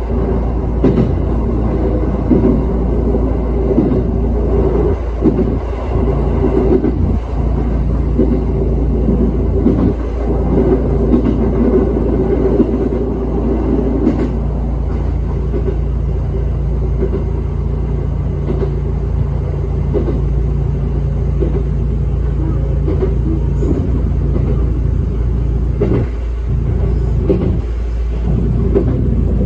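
ET122 diesel railcar running along the track, heard from the driver's cab: a steady engine hum under a rumble of wheels on rail, with occasional short clicks.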